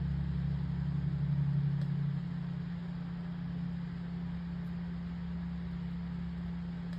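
A steady low hum with a faint hiss, like a machine running; one of its tones stops about two seconds in and the hum goes on a little quieter.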